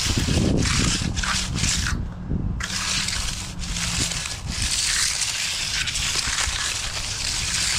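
Wet concrete sloshing and churning as it is poured and spread, with a faint low hum underneath.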